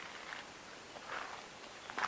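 A footstep on loose ground about a second in, with faint rustling around it.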